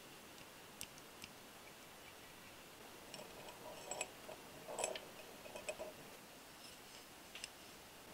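Faint, sparse clicks and taps of small metal parts being fitted into a model engine's cylinder head, valves and springs knocking against the metal head. The clicks are few, with a small cluster about three to six seconds in and the loudest near five seconds.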